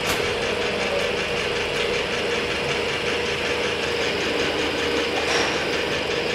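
Metal lathe running steadily with a constant hum and a faint regular ticking about four times a second.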